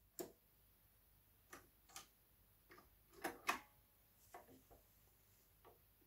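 JVC QL-F61 automatic turntable's tonearm return mechanism: a front-panel button press, then a string of faint, irregular mechanical clicks as the tonearm lifts off the record and swings back to its rest, the loudest pair about three and a half seconds in.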